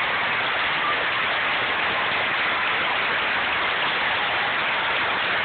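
A large crowd applauding: steady, dense clapping at a constant level.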